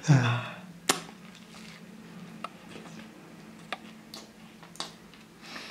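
A person chewing a bite of fruit-topped pizza: a few small scattered clicks and smacks from the mouth, the sharpest about a second in.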